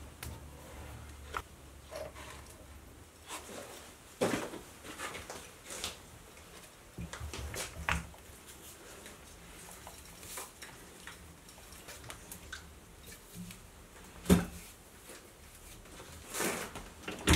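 Workshop press forcing a steel end cap into the tube of a hammer head: quiet, scattered creaks and clicks with a few louder knocks, the loudest about three-quarters of the way through. The fit is a tight interference fit.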